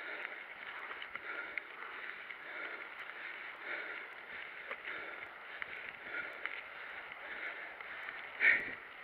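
Mountain bike rolling along a gravel singletrack: a steady crunch of tyres on loose stones with small clicks and rattles from the bike, and a brief louder burst near the end.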